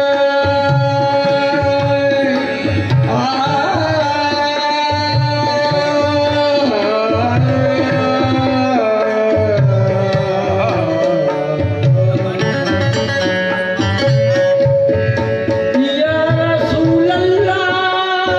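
Live qawwali music: a harmonium holding and shifting sustained notes over a steady hand-drum beat, with a man singing into a microphone.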